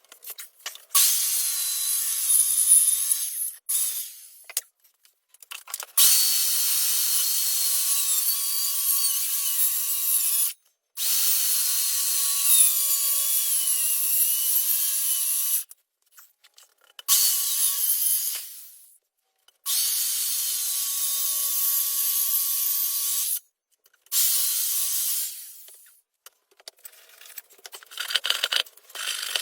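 Power saw cutting cheap pine board, running in about six bursts of a few seconds each with pauses between, a whine inside the longer runs sliding slowly down in pitch and some runs fading out as the saw stops.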